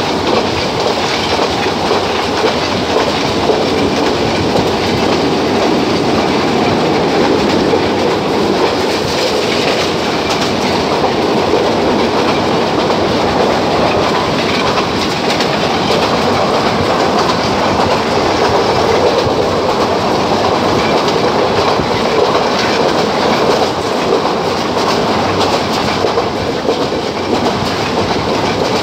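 Moving passenger train: steady running noise of the wheels on the rails and the carriages, without a break.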